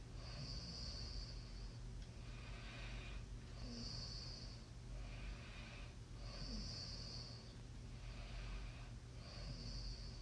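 A sleeping person snoring with hissy breaths in a slow, even rhythm, roughly one cycle every two and a half to three seconds. Each cycle pairs a sharper, higher hiss with a softer, lower one, over a steady low hum.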